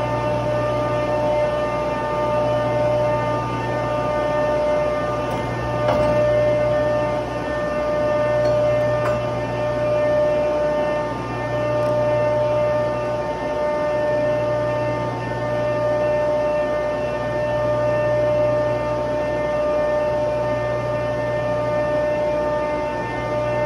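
Steady hum of running industrial machinery in a plant room, with several fixed tones and a low hum that swells and fades every few seconds. A couple of faint clicks come through partway in.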